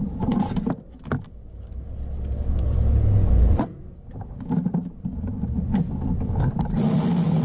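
Cordless power tool running a starter mounting bolt in through an extension: the motor builds for about two seconds and stops suddenly, with sharp knocks of the tool and bolt around it and the motor starting again near the end.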